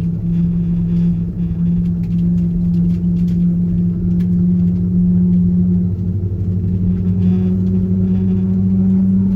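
An Airbus A330-200's jet engines running steadily, heard inside the passenger cabin as a loud low hum. Its pitch steps up slightly about six seconds in.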